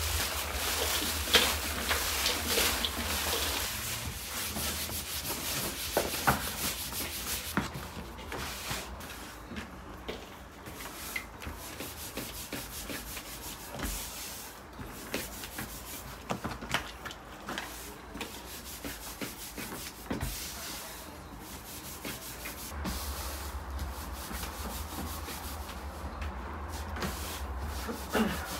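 Hands pressing chopped meat-and-onion filling into rounds of dough to shape samsa. Soft rubbing and rustling, denser in the first few seconds, then scattered light taps and scrapes over a low steady hum.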